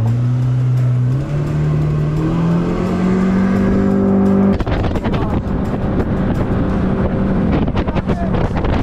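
Jet-drive boat engine revving up in several steps as it gains speed. About halfway through, it gives way to a dense steady rush of engine, wind and water at running speed.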